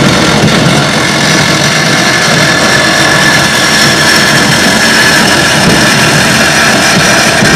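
Power tool cutting through metal, running steadily under load with a high whine over a harsh grinding noise.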